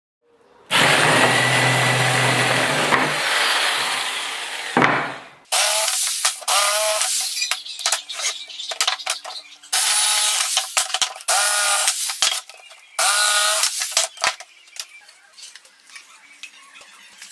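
Corded jigsaw cutting through rough pallet boards: one long cut of about four seconds, then three shorter bursts in which the motor's whine rises and falls with the trigger.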